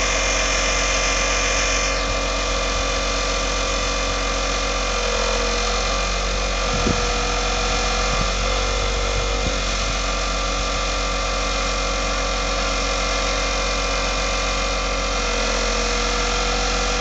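An engine running steadily at idle, with one short knock about seven seconds in.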